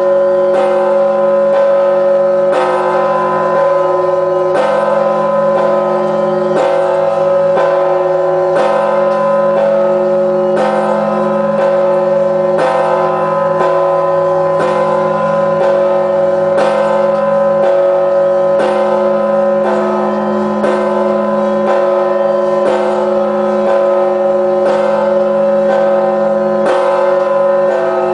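Large 7150 kg church bell tolled at a steady tempo of about one stroke a second (58 a minute), each clang ringing on into the next.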